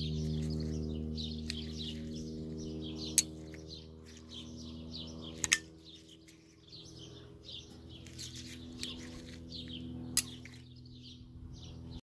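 Small birds chirping rapidly and continuously, over a low steady layer of sustained tones. Three sharp clicks stand out, about three seconds in, at five and a half seconds, and near ten seconds.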